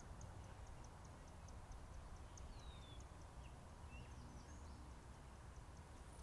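Faint birdsong: a high call repeated evenly about three times a second, with a few short falling chirps from other birds around the middle. Under it runs a low steady rumble.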